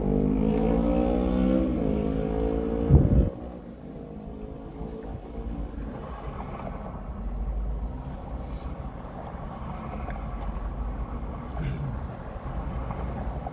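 A vehicle engine speeding up, its pitch rising, then a loud knock about three seconds in. After that comes a lower, steady rumble.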